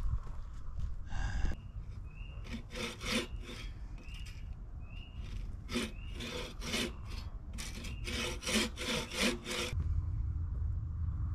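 Hand saw cutting into a wooden log in short runs of strokes, a few strokes a second, with pauses between the runs.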